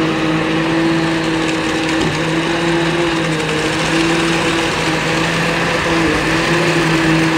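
Concrete mixer truck running steadily while it drives its rear-mounted conveyor belt, which carries concrete down the spout into the trench: a constant machine hum with a held tone that wavers slightly.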